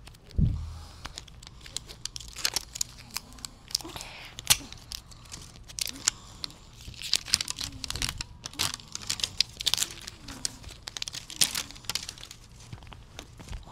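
Wrapping of a Snackles surprise-toy ball being peeled, torn open and crinkled by hand, with many sharp crackles. There is a single low thump about half a second in.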